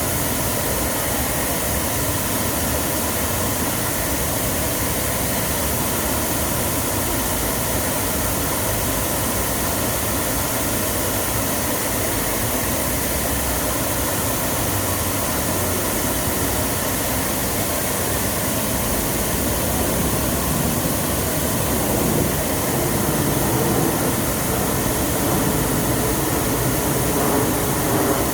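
Artificial waterfall: water pouring and splashing in a steady rush, a little louder after about twenty seconds.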